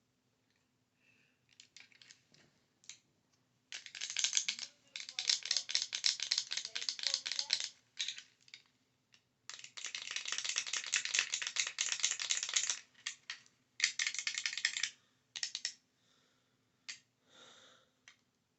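Close-miked bursts of rapid, dense tapping and clicking, made for ASMR. There are four main runs of several seconds each, with short pauses between them and a few brief bursts near the end.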